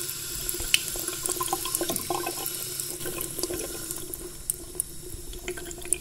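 Bathroom tap running steadily into a basin, with a constant water hiss and many small splashes and drips through it; it eases slightly about halfway through.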